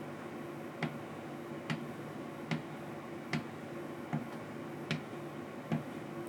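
Chisel in a roller honing guide being stroked back and forth on a waxed honing leather, with a light click at each stroke, seven in all, evenly spaced a little under a second apart.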